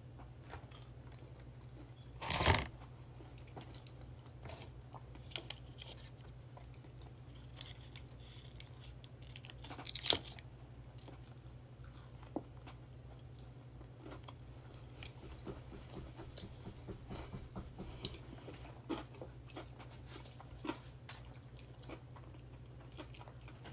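A person biting into and chewing a fried chicken sandwich close to the microphone, with scattered small mouth clicks and two louder short sounds about two and a half and ten seconds in. A steady low hum runs underneath.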